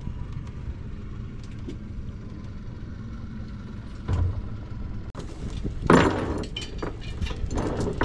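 Suzuki outboard motor running steadily with a low rumble as the boat moves over calm water. After a sudden change about five seconds in, a few short, louder bursts of metal rattling come from the anchor chain being handled at the bow.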